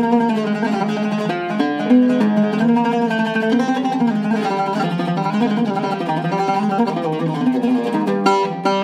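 Seven-course Iraqi-style Zeryab oud, cedar top and mahogany back, played as a melody of quick plucked single notes over its lower strings.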